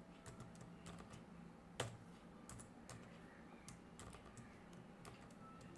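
Faint typing on a computer keyboard: irregular single keystroke clicks, one noticeably louder about two seconds in.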